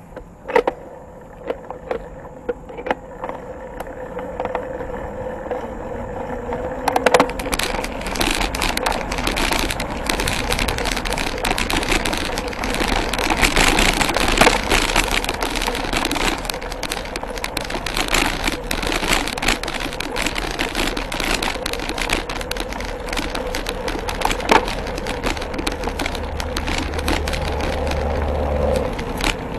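Mountain bike riding over a gravel trail: tyres crunching on loose stones, with many quick rattles and knocks from the bike over the bumps. A few sharp clicks at the start, then the rolling noise builds over the first several seconds as the bike gathers speed.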